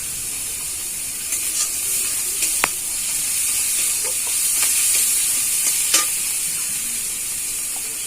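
Poppy-seed and yogurt masala sizzling in oil in a kadai while a spatula stirs it, with a few short scrapes and clicks against the pan. The masala is well fried, with the oil starting to separate from it.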